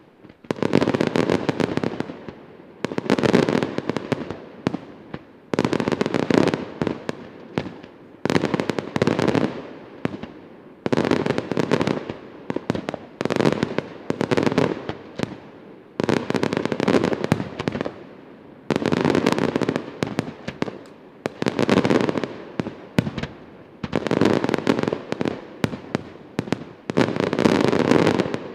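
Aerial fireworks display: repeated volleys of shells bursting, each a dense rattle of many sharp bangs that lasts about a second and then fades, coming roughly every two and a half seconds, about eleven times.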